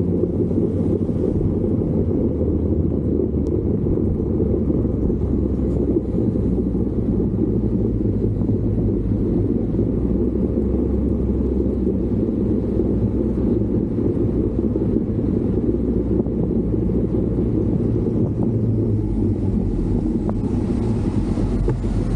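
Steady low vehicle engine drone over a dense rumble, holding an even level.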